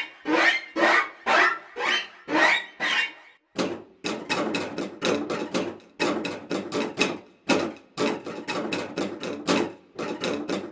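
Sampled solo cello effect hits from the 8Dio CASE Strings library, played through Kontakt: short percussive strikes, about two a second at first, then a faster, denser run of hits from about three and a half seconds in.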